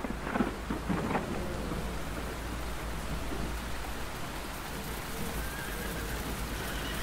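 Rain and thunder sound effects: a few sharp cracks in the first second or so, then steady rain.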